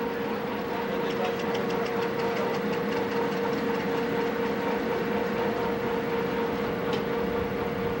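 Steady drone of ship's machinery with a constant hum, heard on a freighter's deck. A run of fast light ticks, about six a second, comes about a second in and lasts some two seconds.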